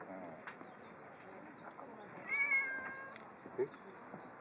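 A domestic cat meowing once, a single call of about a second that starts about two seconds in.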